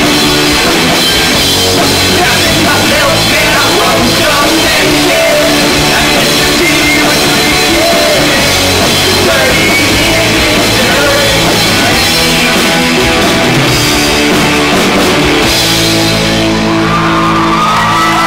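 Live rock band playing: electric guitars, bass and drum kit, with a singing voice. Near the end the high crash fades and long held notes ring on.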